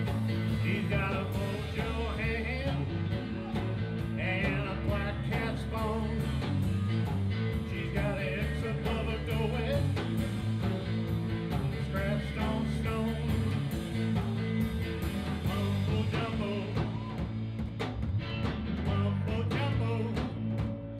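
Live rock-and-roll band playing a song at a steady level, with electric guitar over drums.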